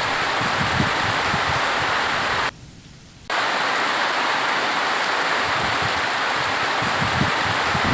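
Steady, even rain noise that drops out abruptly for under a second about two and a half seconds in, then returns at the same level.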